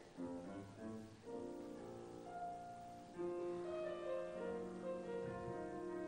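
Slow classical instrumental music with piano, notes held and changing, growing louder about three seconds in.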